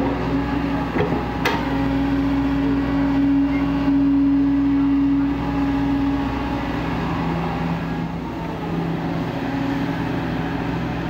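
Heavy diesel earthmoving machinery running, a steady low drone with two sharp knocks near the start. A strong held engine tone swells from about a second and a half in and drops away after about six seconds.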